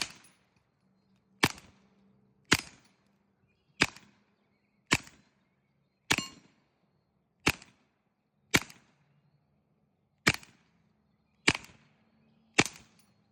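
Suppressed .22 LR shots from a Taurus TX22 pistol firing through a 3D-printed PA6 carbon-fibre suppressor. Eleven single shots come at a steady pace, a little over a second apart, each a sharp crack with a brief tail.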